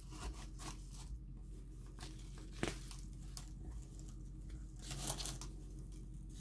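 Faint rustling and crinkling of a plastic bag and bubble wrap being pulled back by hand, with a sharp tap about two and a half seconds in and a louder rustle near five seconds.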